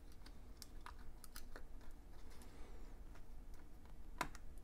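Small clicks and taps from fingers handling a flex cable and pressing its connector into place inside an opened MacBook Air, with one sharper click about four seconds in.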